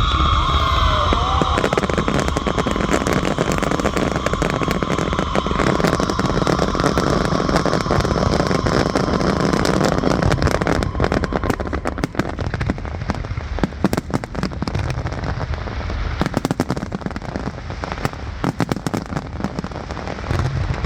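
Fireworks display going off: a dense, continuous barrage of crackling pops and bangs. A high whistle sounds over it through the first half and fades out about ten seconds in.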